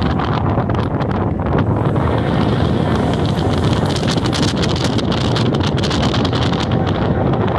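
Wind buffeting the microphone: a loud, steady low rumble broken by many short crackles.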